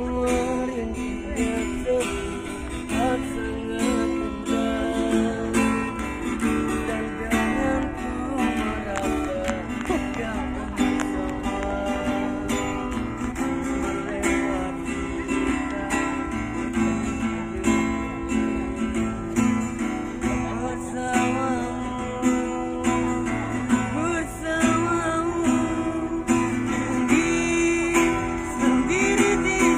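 Street busker's acoustic guitar strummed in a steady rhythm, with a voice singing over it.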